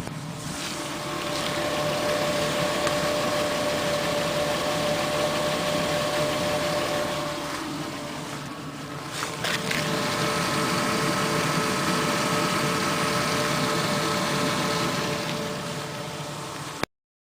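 24-valve VR6 engine running at low revs with timing chain noise, which the owner traced to restricted oil flow to the chain tensioner. The sound eases off about halfway, a click comes, and it picks back up before cutting off suddenly near the end.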